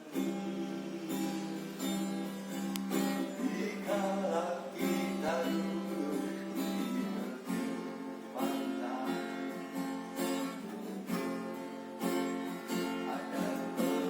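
Ukulele strummed in repeated chords, with a full tone close to an acoustic guitar.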